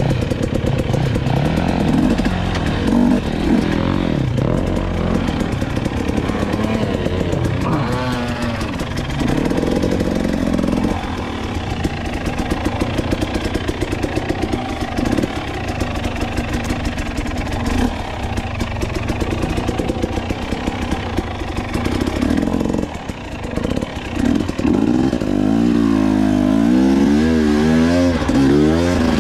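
Dirt bike engine running hard through sandy ruts, the throttle opening and closing; near the end it revs up and down several times in quick succession.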